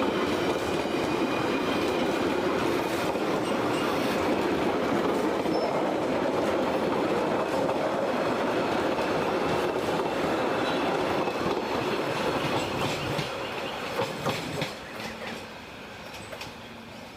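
High-speed express train passing close by, its wheels running steadily on the rails. From about 13 seconds in the sound dies away as the train goes past, with a few sharp clicks over rail joints.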